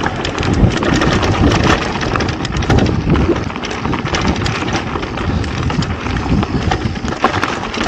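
Mountain bike riding fast down a dirt singletrack: a steady rush of tyre noise with frequent rattles and knocks from the bike over bumps.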